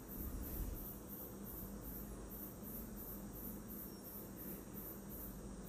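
Faint insect chirping in a steady, even pulse, about four to five pulses a second, over a low background hum.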